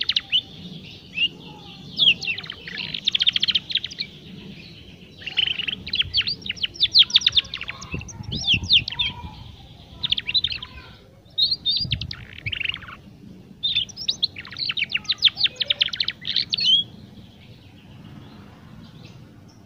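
Young domestic canary's learning song (subsong): about seven short phrases of rapid twittering chirp trills with brief gaps between them, stopping about three seconds before the end.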